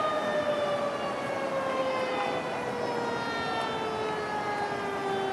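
Fire truck siren winding down: one long wail whose pitch falls slowly and steadily throughout.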